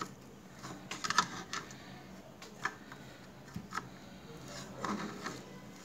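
Scattered light metallic clicks and ticks, roughly a second apart, from an adjustable wrench on the 39 mm nut of a scooter's spring-loaded centrifugal clutch as it is loosened a little at a time.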